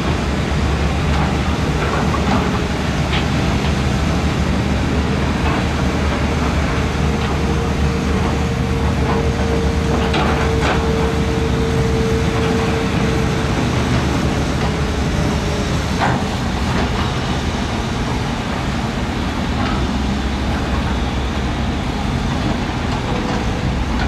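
Heavy diesel earthmoving machinery running steadily: a low engine drone with a few scattered metallic knocks. A steady whine rises above it for several seconds near the middle.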